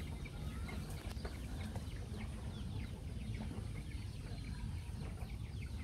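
Chickens clucking in short, scattered calls over a steady low rumble.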